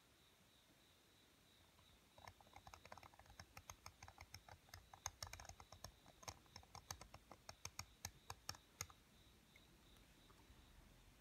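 Small seal-carving knife cutting into the face of a seal: a quick, irregular run of faint clicks and scratches as the blade chips away material, starting about two seconds in and stopping about two seconds before the end.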